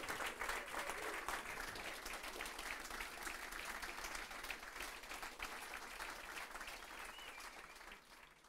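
Audience applauding: dense clapping that fades out near the end.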